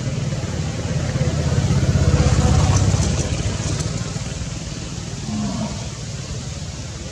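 Low rumble of a passing motor vehicle's engine, swelling to its loudest two to three seconds in and then fading away.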